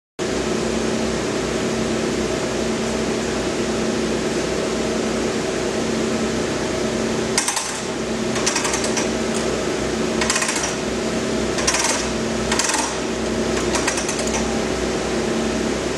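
Steady mechanical running hum with a low pulsing, starting abruptly, joined about halfway through by half a dozen short bursts of hiss.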